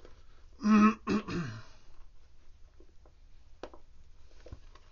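A man clears his throat once, about a second in, a short two-part rasp. After it come a few faint clicks from the hand stitching of a shoe welt.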